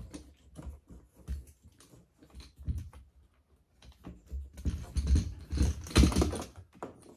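Fuel pump and sending unit assembly being eased into a fuel tank's opening: irregular light clicks, knocks and scrapes of plastic and metal parts against the tank, busier over the last few seconds.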